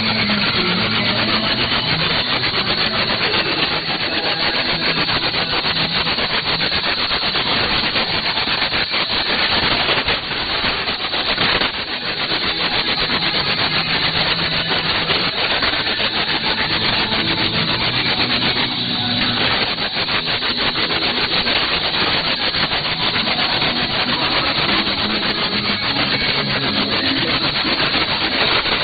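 Weak shortwave broadcast on 6160 kHz heard through a software-defined radio receiver. It is mostly a dense, rough hiss and crackle of static, with faint music notes just showing through underneath.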